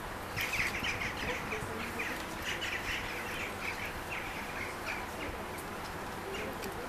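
Small birds chirping in quick runs of short chirps, busiest in the first five seconds and sparser after.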